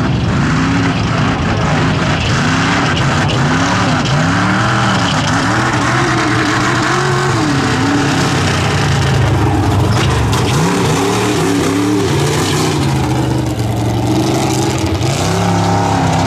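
Lifted mud truck's engine revving hard and repeatedly, its pitch swinging up and down about once a second as the driver works the throttle on big mud tyres. There is a short lull past the middle, then more revs.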